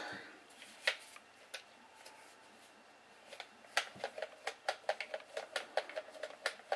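Faint small clicks: two single ones early, then from about three seconds in a quick irregular run of about three or four clicks a second.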